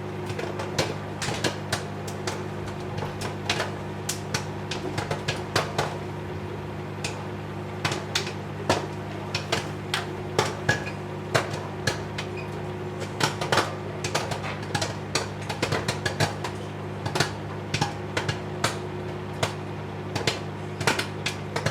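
Popcorn kernels popping inside a running Whirlpool microwave oven. Sharp, irregular pops, sometimes several a second and sometimes a second or so apart, sound over the oven's steady hum.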